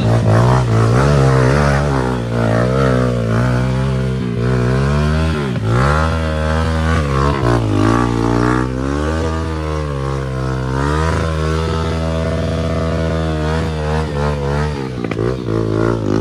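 Trail motorcycle engine being ridden, its pitch rising and falling over and over as the throttle is opened and closed, then dropping lower near the end.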